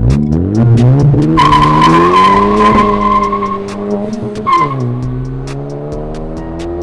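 Honda Civic Si's turbocharged four-cylinder with an AWE Track exhaust, accelerating hard under load. The engine note climbs, holds, then drops sharply about four and a half seconds in at a gear shift and climbs again. A high, steady squeal runs over the first pull and returns briefly at the shift.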